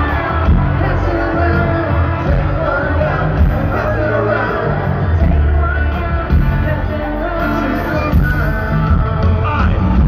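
Amplified live band music with a singer's voice over heavy bass, heard from the audience at a stadium concert.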